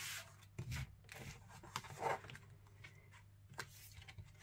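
Paper pages of a picture book being handled and smoothed flat by hand: a few short, soft rustles and brushes, with a light knock about half a second in.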